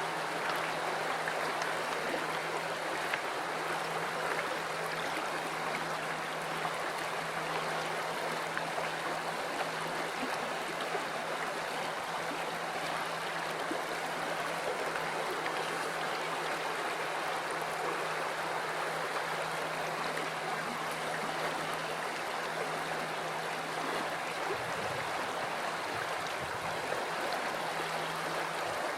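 River water flowing steadily, an even rush of running water.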